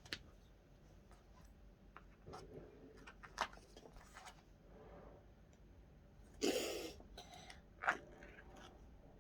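Faint sticky clicks and squelches of slime being handled and pulled apart, with a louder crackle about six and a half seconds in and a sharp snap near eight seconds.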